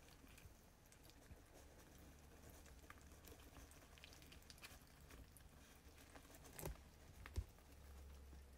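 Young hedgehog eating from a metal dish: faint, quick smacking and clicking with light rustling of hay, and two louder knocks near the end.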